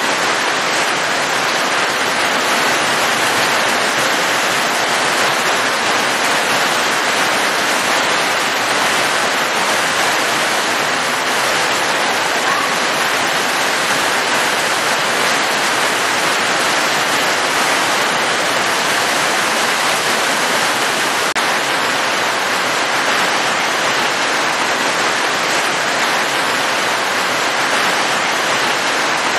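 Steady rain falling: an even, unbroken hiss that does not change.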